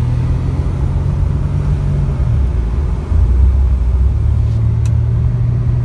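Car engine and road noise heard from inside the cabin while driving: a steady low hum whose pitch shifts about two seconds in and that grows louder about three seconds in.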